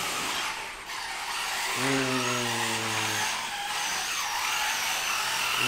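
The electric track drive of the AE0.12 prototype soft robot, whose crawler tracks are covered in sponge, running as it climbs a steep stair set: a steady whirring hiss, with a low droning motor tone that comes in about two seconds in and again near the end, as the motors take the load of the climb.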